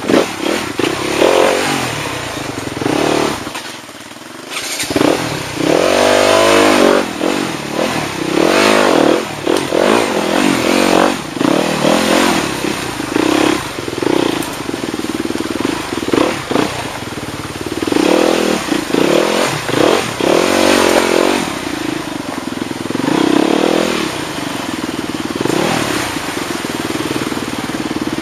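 Off-road motorcycle engine revving up and down over and over, as if picking its way over rocks, with a short easing of the throttle about four seconds in.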